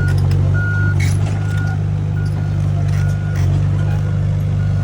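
Komatsu PC78US excavator's diesel engine running steadily, with its travel alarm beeping a little under once a second while the machine tracks. A couple of short clanks sound about a second in and again about three seconds in.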